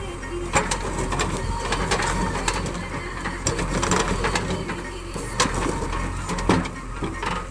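JCB 3DX backhoe loader working, its diesel engine running steadily under irregular clanks and knocks.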